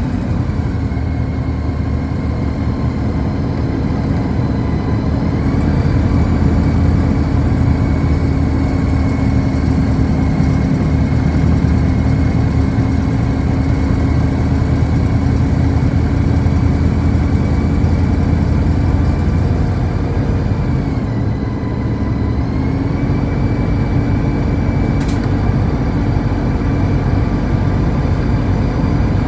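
City bus engine and road noise heard from inside the cabin while under way, a steady drone whose engine note rises about five seconds in, drops around twenty seconds and climbs again shortly after.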